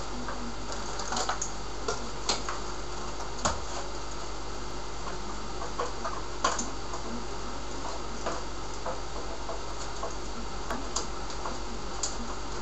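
Irregular light clicks and taps, about a dozen, over a steady low hum: hands handling computer hardware and cables.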